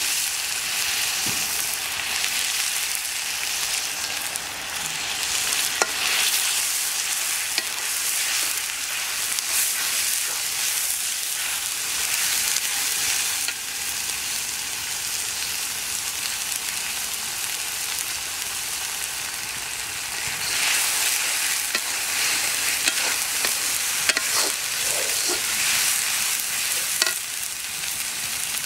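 Vegetables sizzling in hot oil in a wok over a wood fire: a steady frying hiss broken by a few sharp clicks.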